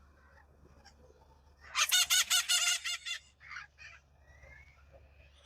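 A domestic chicken calling: one loud call of quickly repeated notes lasting about a second and a half, followed by a few shorter notes.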